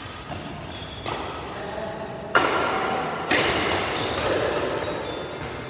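Badminton rackets striking the shuttlecock in a fast doubles rally: three sharp hits about a second apart, the middle one loudest, each echoing around a large hall.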